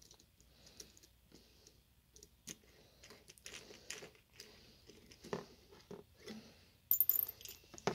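A small screwdriver backing screws out of a quadcopter frame: faint, scattered clicks and ticks, with a louder clatter about seven seconds in.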